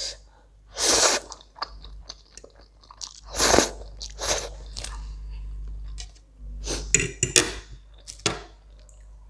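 A person slurping and chewing Korean instant ramen noodles close to the microphone, with loud slurps about a second in and again about three and a half seconds in, and smaller wet mouth noises between.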